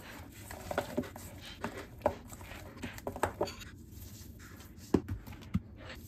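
A spoon stirring thick kimchi seasoning paste of chili flakes in a stainless steel bowl. The utensil makes irregular scrapes and knocks against the bowl, in small clusters, with the sharpest knock about five seconds in.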